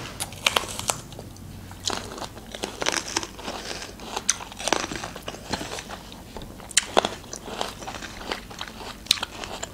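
Crisp, unripe green cherry plums (alycha) being bitten and chewed by two people, with irregular sharp crunches.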